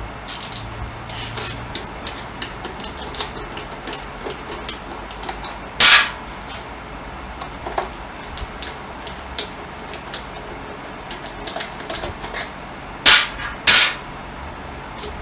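Metal tools and scooter engine parts being handled: many light clicks and knocks, with three loud sharp bangs, one about six seconds in and two in quick succession near the end.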